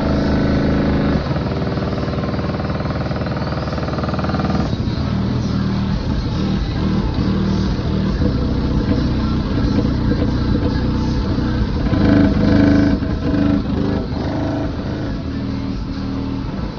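Loud bass-heavy music playing through four FI BTL 15-inch subwoofers on a 12,000-watt amplifier in a Chevy Blazer, heard from outside the vehicle. The low held notes change every few seconds and are loudest about twelve seconds in.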